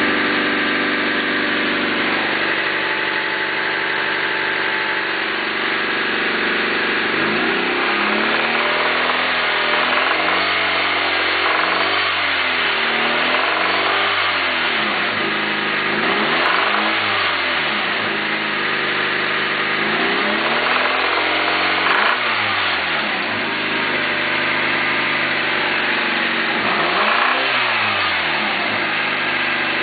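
Car engine idling steadily, then revved up and let back down about five times from about seven seconds in. The owner asks whether its noise is rod knock.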